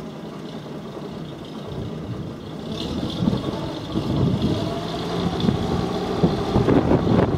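Thornycroft Nubian Major fire crash tender's engine idling, a steady low hum that grows louder and rougher from about halfway through.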